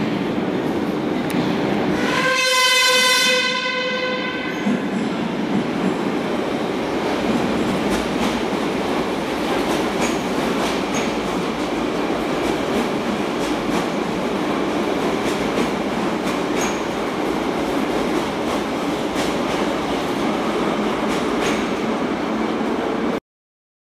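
Metro train sounding its horn once, a single held note of about a second and a half, as it enters the station. Then comes the steady rumble of the train running along the platform, with clicks of the wheels over rail joints. The sound cuts off suddenly near the end.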